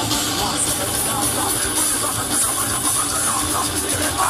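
Live heavy-metal concert heard through a phone's microphone from inside the crowd: loud, distorted band music mixed with crowd noise, with a steady high whine from about half a second in.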